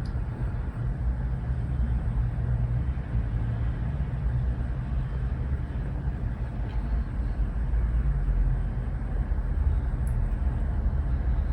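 Steady low rumble with no distinct events, its energy sitting in the bass, under a faint thin high-pitched tone.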